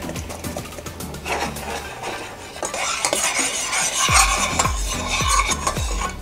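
A utensil stirring and scraping against a stainless steel saucepan, with many quick clinks, while the soy, vinegar and honey sauce sizzles lightly on the heat. The stirring gets busier and louder about halfway through.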